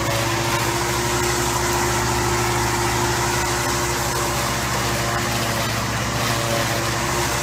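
Small engines running steadily: a John Deere compact tractor and a lawn mower held up on its front loader, cutting the top of a hedge, with a constant hum.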